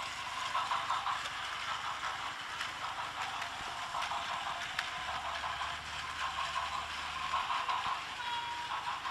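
Battery-powered Plarail toy trains running on plastic track: a steady whirring of small motors and gearboxes with a faint clicking, and a thin motor whine that comes and goes.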